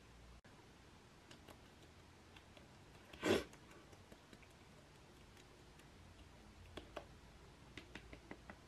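Quiet room with a few faint light clicks, one short burst of noise about three seconds in, and a quick run of small clicks near the end.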